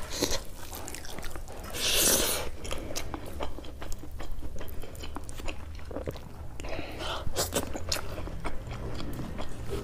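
Close-miked eating sounds: a person chewing rice and paneer curry, with wet mouth clicks and lip smacks, and fingers scraping rice together on a steel plate. A short hissy burst comes about two seconds in.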